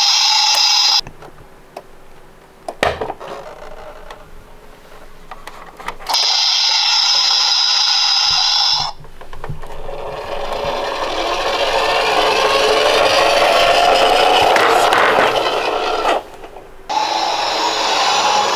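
Toy vehicle sounds: stretches of a steady electronic tone alternate with quieter clicking and a whirring rub that swells and rises in pitch over several seconds.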